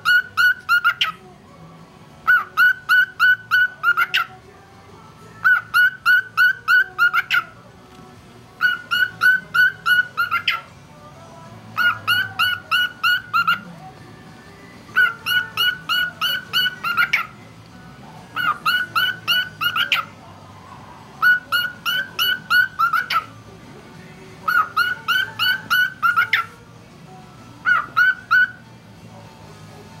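Cockatiel whistling its song: a phrase of quick, clear whistled notes, each about two seconds long, repeated roughly every three seconds about ten times. The last phrase near the end is cut short.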